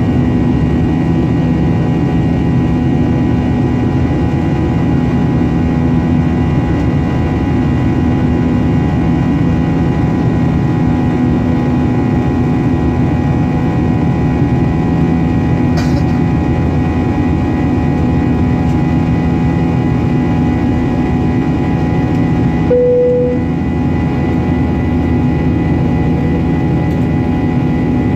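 Steady jet airliner cabin noise during the climb after take-off: an even roar of engine and airflow with a constant hum. A brief single tone sounds about 23 seconds in.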